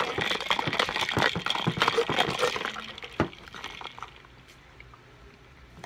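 A straw stirring iced coffee in a cup, with quick clicking and rattling of ice, stopping about three seconds in.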